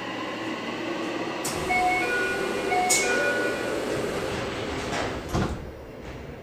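Toei subway car's door chime, a short pattern of high tones played twice, as the sliding doors close, ending in a thump about five seconds in as the door leaves meet.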